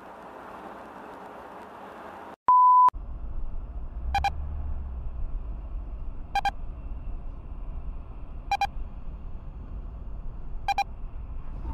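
Steady driving noise from a car on a highway. About two and a half seconds in, it cuts to a loud single-pitch beep lasting about half a second. Then comes a car's low in-cabin road rumble, with a short electronic beep repeating about every two seconds.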